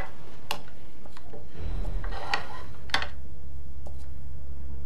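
A few light clicks and taps of small objects being handled, with a steady low hum coming in about one and a half seconds in.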